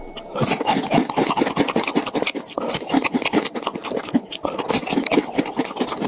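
Popcorn being scooped up: a dense, continuous crackling rustle of kernels rubbing and tumbling against each other and the container.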